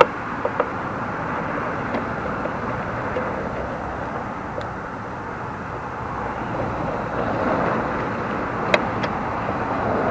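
Steady rushing background noise that swells slightly near the end, with a few light clicks from a screwdriver and the mirror trim being handled.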